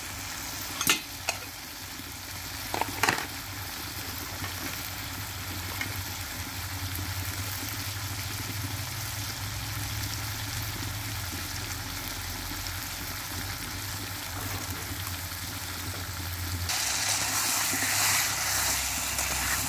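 Marinated mutton and onions sizzling steadily in a hot steel karahi while being fried down (kosha). Two sharp clicks come in the first few seconds, and about 17 s in a metal spatula starts stirring the meat and the sizzling grows louder.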